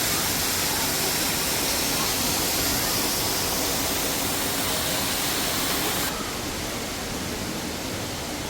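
Düden Waterfall's falling water making a steady, loud rushing noise. About six seconds in it suddenly becomes a little quieter and less hissy.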